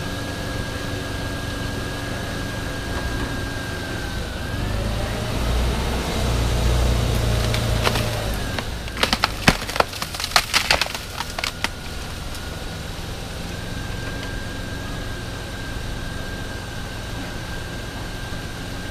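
Vehicle engine running steadily, swelling louder about five to eight seconds in. Then, from about nine to twelve seconds, a quick run of sharp cracks and snaps of wood as an elephant breaks branches beside the vehicle.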